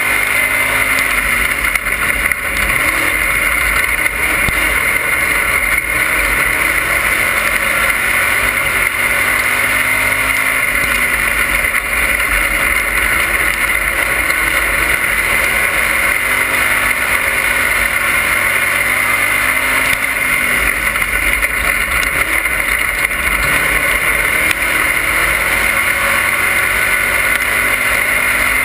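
Dirt-track race car engine running hard at racing speed, heard from inside the cockpit: loud and unbroken, its pitch rising and falling slightly.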